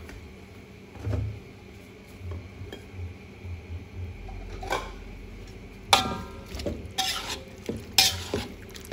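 Metal spatula scraping and clinking against a metal wok while stirring a saucy stew of meat and vegetables. There are a few sharp metallic scrapes with a brief ring, starting about six seconds in.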